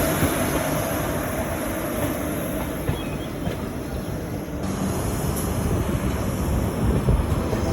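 Steady running noise of the Durgiana Express passenger train moving along the line, an even noisy din with a slight change in character about four and a half seconds in.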